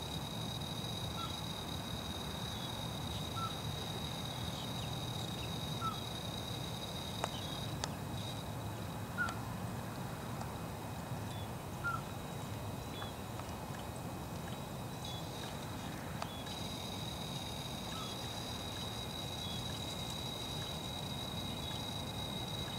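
Outdoor marsh ambience: a steady low rumble, a thin high steady whine that cuts out about eight seconds in and returns about eight seconds later, and short faint calls every two or three seconds.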